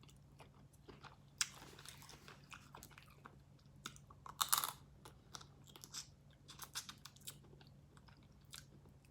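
Close-up eating sounds of a seafood boil: chewing, biting and crunching of shellfish, irregular sharp crackles with the loudest cluster about four and a half seconds in.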